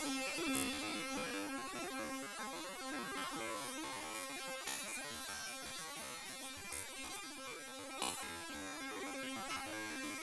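A steady low buzzing hum.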